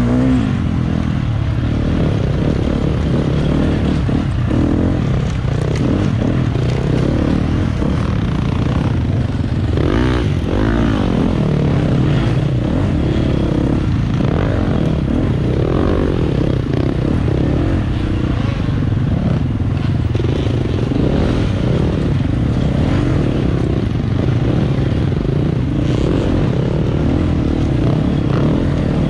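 Off-road dirt bike engine heard close up from an onboard GoPro while ridden on a race trail, its revs rising and falling over and over, with occasional knocks from the bike over rough ground.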